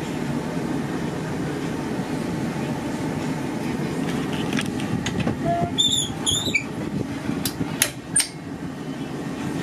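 A steady low rumble inside a van cab. About six seconds in come two short high squeaks, then a few sharp plastic clicks as the swing-out dash tray mount is gripped and moved.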